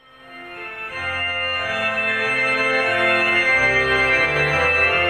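Instrumental introduction of a hymn played on an organ: sustained chords over a bass line that steps to a new note every second or so, fading in over the first second.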